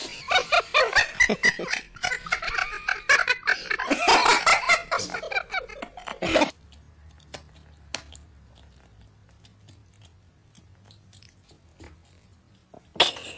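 A person laughing in quick, broken bursts for about six seconds, then only faint room noise, with a sharp click near the end.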